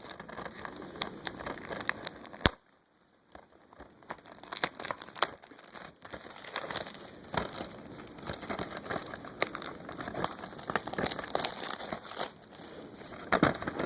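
Crinkling of plastic shrink wrap on a DVD case as it is handled and picked at, with scattered sharp clicks. It breaks off briefly about two and a half seconds in, then carries on.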